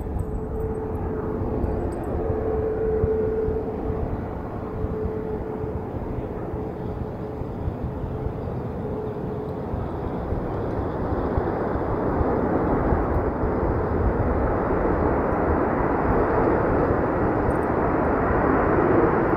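Jet aircraft engine noise: a steady hum over a low rumble at first, then a broad rushing noise that grows louder through the second half as the aircraft comes closer.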